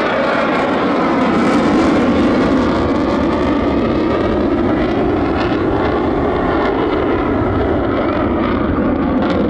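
F-35C Lightning II's single Pratt & Whitney F135 turbofan running in afterburner through a high-G turn, a loud, steady rush of jet noise.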